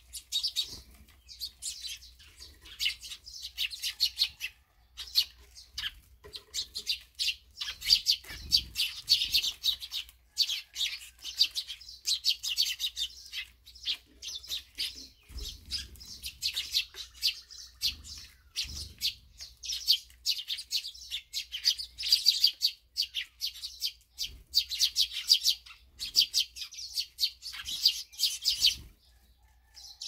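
A flock of Eurasian tree sparrows chirping continuously in quick runs of short chirps with brief pauses, with a few soft flutters of wings as birds land and take off.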